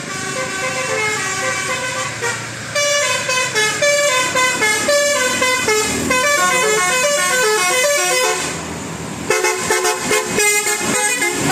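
A tune played in loud, horn-like pitched tones, stepping from note to note several times a second, with a short lull about eight seconds in and choppier, broken-up notes after it.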